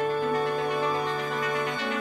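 Background music: sustained instrumental notes held and changing every second or so.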